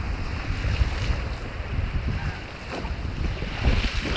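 River water rushing, with wind buffeting the microphone in gusts.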